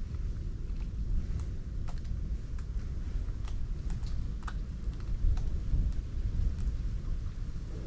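Wind rumbling on the microphone, with irregular light clicks scattered throughout.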